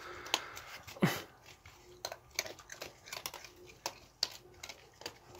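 Raccoons feeding on food scattered over a wooden deck: irregular small clicks and crunches from chewing and from claws on the boards, with one louder knock about a second in.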